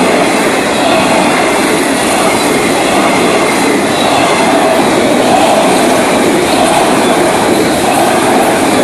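Cars of a Florida East Coast Railway freight train rolling past: a steady, loud rush of wheel and rail noise.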